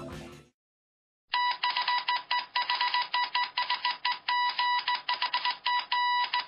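Background music fading out, then about a second in an electronic beeping starts: one high beep tone switching on and off rapidly in an irregular pattern of short and longer beeps, lasting about five seconds.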